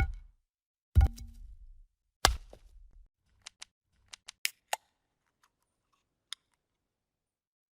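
Video-editing transition sound effects: two sharp hits with a low thud after each, about one and two seconds in, then a quick run of small clicks and ticks, and one more single click a little later.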